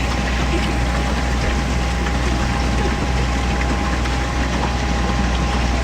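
Small boat's engine running steadily at low cruising speed, a low drone under a wash of noise, with a thin steady tone above it.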